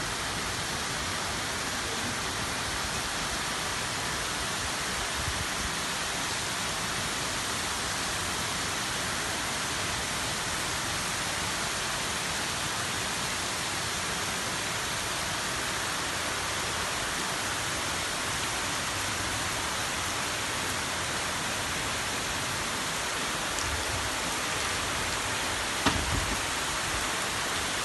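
Heavy rain pouring down as a dense, steady hiss, with a few sudden low bumps near the end.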